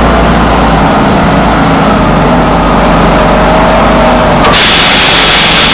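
Engine of an airsoft tank vehicle running steadily under a loud rumble on the gun-mounted camera. About four and a half seconds in, a loud hiss starts and continues.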